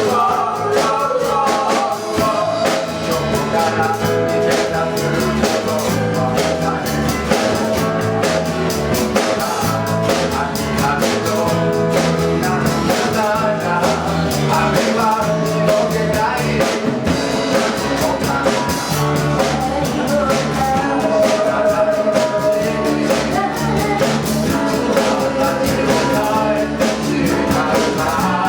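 An eleven-piece band playing a pop song live, with a singer over drum kit and guitar.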